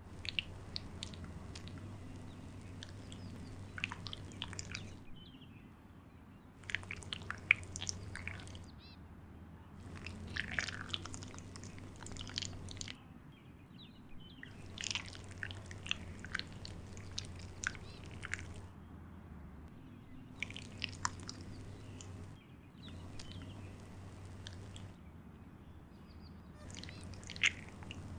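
Wet squelching and sticky clicking, an added slime sound effect for a crawling snail, in about seven bursts of one to five seconds with short gaps between. A low steady hum runs underneath.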